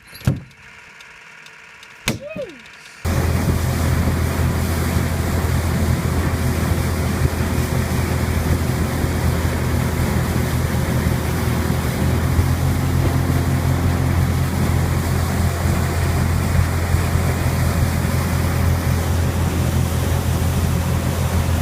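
A few knocks, then about three seconds in a boat's motor comes in suddenly and runs steadily with a low hum under a constant rush of wind and water, as of a boat under way.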